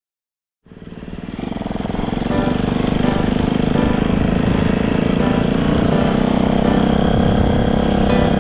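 Motorcycle engine running steadily, fading in after a brief silence, heard through a helmet camera's microphone. Near the end, music with a regular ticking beat comes in.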